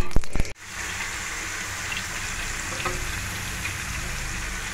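Tomato-marinated fish pieces shallow-frying in oil on a flat griddle pan: a steady sizzle with occasional small pops. It opens with a short run of sharp crackles, and the steady sizzle settles in after about half a second.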